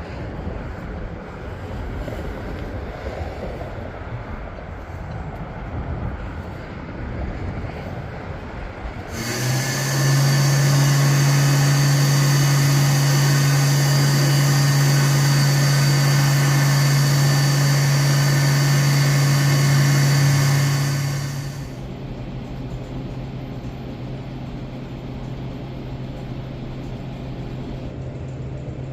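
A Kenworth W900 semi truck running down the highway, with steady road and engine noise. About nine seconds in, a much louder steady hum with a strong low tone comes in, lasts about twelve seconds and drops away, leaving the low drone under the road noise.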